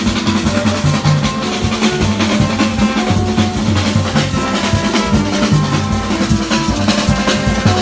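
Street band of hand drums and horns playing: drums beating a fast, steady rhythm under repeated held horn notes.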